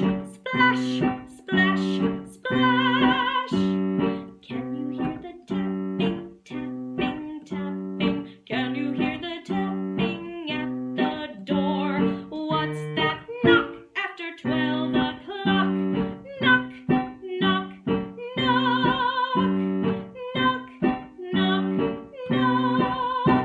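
Music: a strummed plucked-string instrument with an even strum about twice a second, with wavering held melody notes above it, cutting off abruptly at the end.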